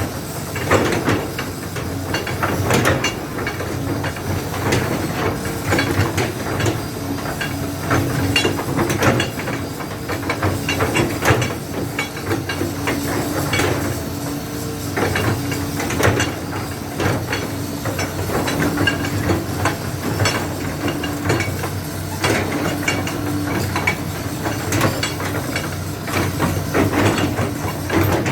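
Hitachi ZX200 hydraulic excavator running: a steady engine note with many irregular knocks over a constant noisy haze.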